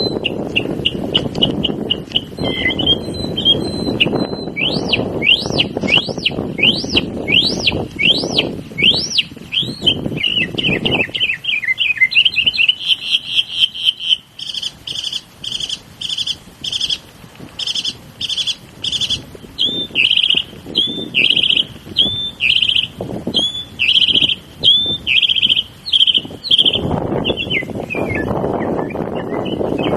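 Mockingbird singing a mimicked car alarm: a run of rising-and-falling whooping notes about one and a half a second, then fast chattering and strings of repeated chirps like the alarm's changing patterns. A low background rumble runs under the start and the end.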